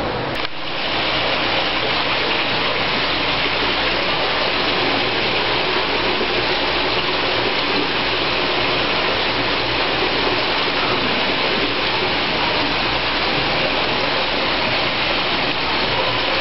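Steady rush of running water, as from an aquarium tank's circulation and inflow. There is a short click about half a second in, after which it runs on evenly.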